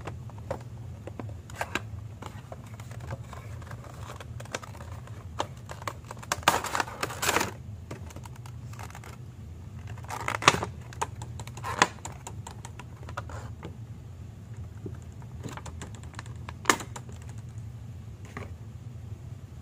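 A cardboard Funko Pop box and its clear plastic blister insert being handled and opened, giving scattered light taps and clicks. A few louder crackles of stiff plastic stand out, the longest about a third of the way in.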